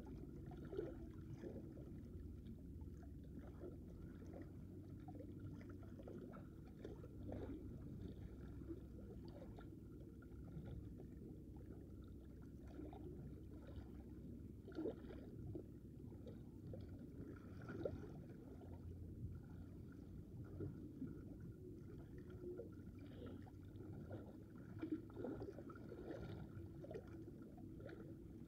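Small sea waves lapping and splashing against shoreline rocks: a low, steady wash with many small irregular splashes.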